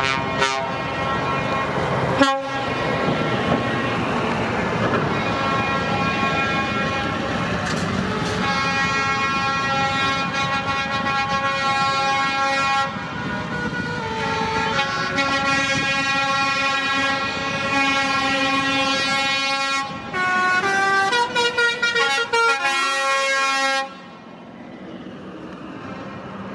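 Heavy trucks passing in a convoy with engine and road noise, then truck horns sounding long held chords of several tones at once. A run of short toots comes near the end before the sound drops quieter.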